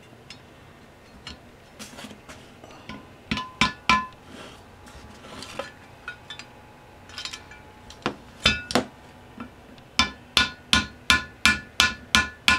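Plastic-faced mallet tapping a steel pin through the rubber bushing of a Delta Rockwell Unisaw Jet Lock fence head. A few scattered taps, then a quick run of about eight near the end, each with a short metallic ring.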